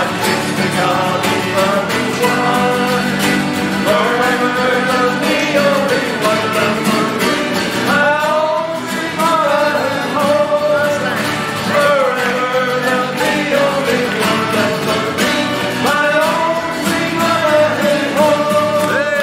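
Two men singing together over strummed acoustic guitars and a button accordion: an Irish folk song played live.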